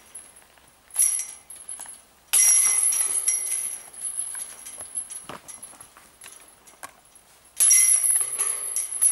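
Discs hitting the hanging metal chains of a disc golf basket: a short jingle about a second in, then two loud rattles of the chains, about two seconds in and again near the end, each ringing out for a second or so before fading.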